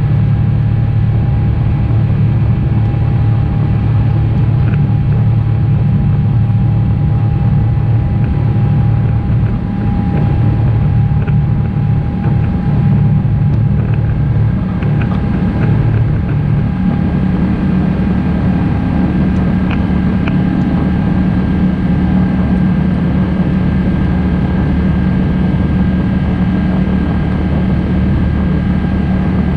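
Airbus A350-900 cabin noise during the climb after takeoff: the steady low drone of its Rolls-Royce Trent XWB turbofans and the airflow, with a thin steady whine above it. About sixteen seconds in, the low drone shifts to a slightly different pitch.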